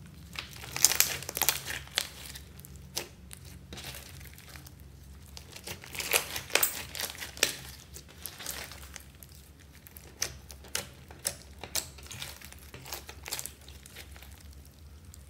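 Hands squishing, folding and stretching thick slime mixed with small beads, giving bursts of crackling, popping clicks. The crackles come in clusters, loudest about a second in and again around six seconds.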